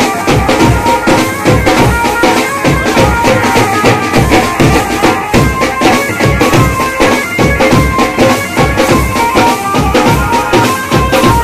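Lezim dance music: a reedy wind instrument holds a melody over a steady drum beat and fast, sharp percussion strikes.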